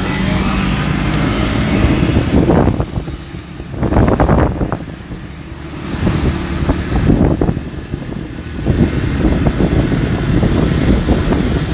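Motorcycle riding along a wet road in the rain, its engine and road noise mixed with gusty wind buffeting on the microphone. The level drops away twice before picking up again.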